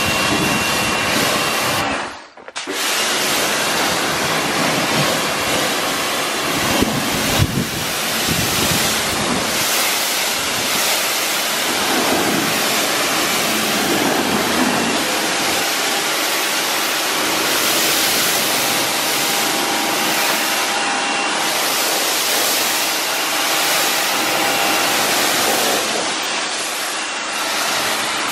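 Pressure washer jet spraying water onto a car's paintwork, wheel and windscreen, a steady loud hiss of spray while rinsing off ceramic foam. The spray cuts out briefly about two seconds in, and two short knocks come about seven seconds in.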